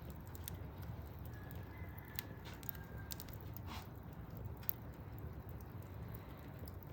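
Wood fire burning in a fireplace: a steady low rumble with scattered sharp pops and crackles, the loudest a single snap about two-thirds of the way through.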